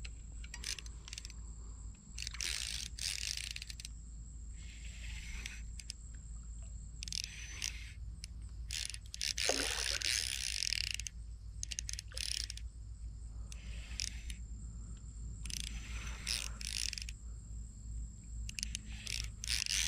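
Ultralight baitcasting reel working in short, irregular spurts of gear and drag clicking while a big carp fights on light line with a loose drag. A thin steady high tone runs underneath.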